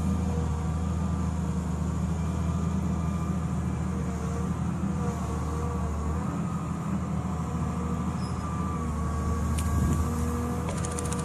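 Diesel engine of a Volvo EW160 wheeled excavator running steadily under hydraulic load, with wavering whining tones as the boom swings its mowing basket down toward the ditch. A fast, even rattle starts just before the end.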